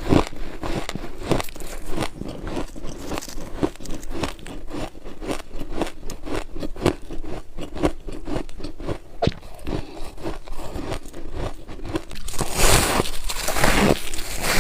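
Close-up crunching and chewing of freezer ice, a rapid irregular run of sharp crunches. Near the end a louder, crisper scraping crunch joins in.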